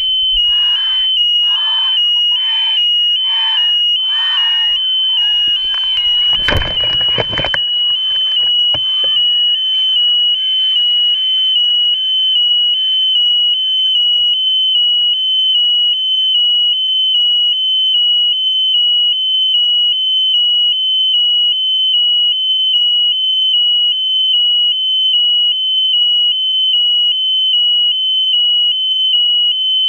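Electronic buzzer on the balloon payload sounding one continuous high-pitched alarm-like tone with small regular dips. A loud rush of noise cuts across it about six seconds in, as the payload lifts off.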